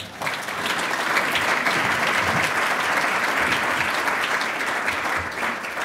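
Audience applauding, starting right away and dying away near the end.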